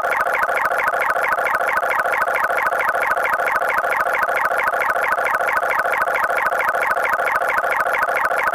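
Emergency alert alarm tone: a rapid, even electronic warble of several tones together, pulsing about seven times a second without a break.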